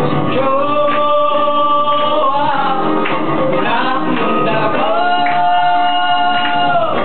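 Live song: singing over strummed guitars, with a long held sung note near the start and another near the end.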